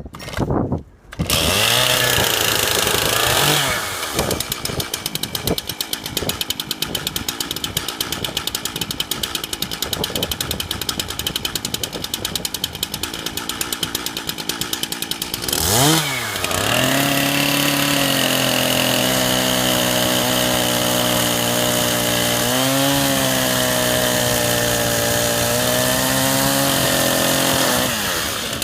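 Two-stroke chainsaw engine, cold, catching about a second in and revving high. It then runs rougher and lower for about ten seconds. Just before the halfway mark it revs sharply and then holds a steady high-speed note, with a brief dip in pitch in the middle of that stretch and a drop near the end.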